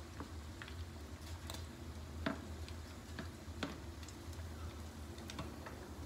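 Metal slotted spatula clicking and scraping against a frying pan as pieces of pan-fried fish are turned and lifted, with faint sizzling of the oil. Scattered sharp clicks, the loudest about two seconds in, over a steady low hum.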